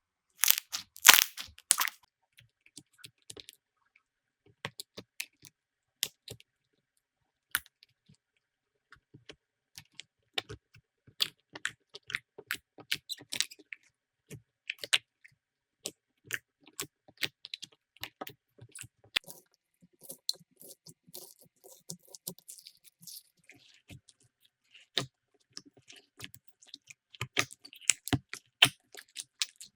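Slime being squeezed, pressed and poked by hand, making irregular small sticky clicks, pops and crackles. The loudest, densest run of crackling comes about a second in.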